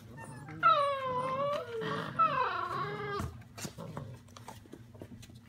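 A few-week-old blue Great Dane puppy crying out twice in long, high whines that slide slightly down in pitch while it is nipped during rough play with its littermates. Small scratches and clicks from paws on the pads run underneath, with a low thump just after the second cry.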